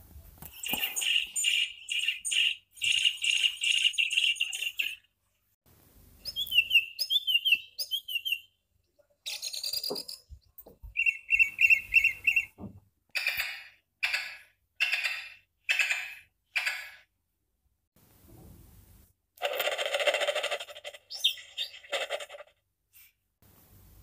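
Recorded bird sounds played from a children's touch-and-hear sound book's small speaker, one short clip after another with brief silences between as each button is pressed. They open with baby blackbirds chirping, followed by other songbird calls and chattering.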